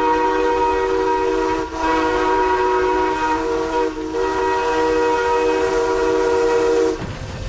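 A multi-note chime train whistle sounding a steady chord in three long blasts, with brief breaks nearly two and about four seconds in, cutting off about seven seconds in.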